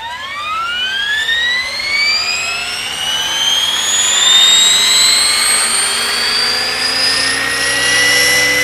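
Align T-Rex 600 RC helicopter spooling up: a whine that rises steadily in pitch over several seconds as the rotor comes up to speed, levelling off near the end.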